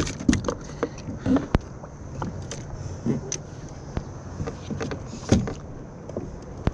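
Scattered knocks and clicks aboard a fishing kayak, the loudest about five seconds in, over a low steady rumble.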